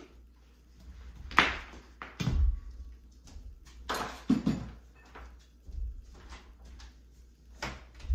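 Scattered knocks and clicks with a few dull thuds: someone setting things down on a kitchen counter and walking across the floor. The hand mixer is not running.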